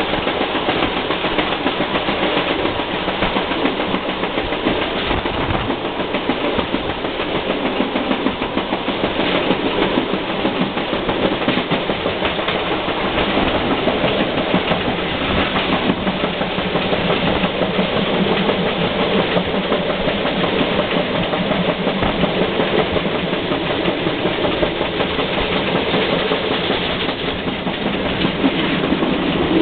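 Train hauled by the steam tank locomotive BR 64 518 running steadily along the track.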